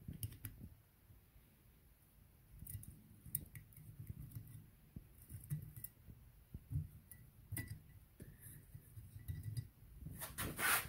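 Light, scattered clicks and taps of a plastic carburetor float and its small metal spring and pin being fitted by hand into a metal float bowl, as the float is seated in place. A brief louder rustle comes near the end.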